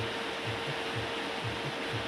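Steady hiss of blowing air from an electric blower, with a faint steady hum underneath.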